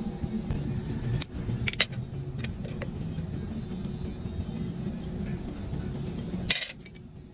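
Sharp metallic clinks and knocks from steel moulding flasks and a metal bar being handled in sand casting, a few scattered strikes with the loudest just after a second in and near the end. A steady low hum runs under them and cuts off suddenly near the end.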